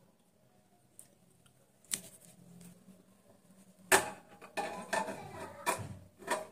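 Pressure cooker lid being twisted open by its handle: a couple of faint clicks, then from about four seconds in a run of sharp metal clanks and scrapes as the lid turns in its locking rim.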